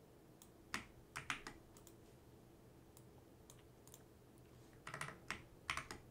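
Computer keyboard keystrokes, faint and sparse: a short group about a second in and another near the end. These are the key presses of copy and paste shortcuts.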